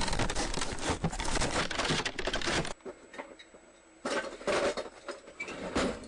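Stiff plastic packaging being handled and wrenched, giving dense crinkling and crackling that breaks off for about a second midway, then comes back as scattered crackles.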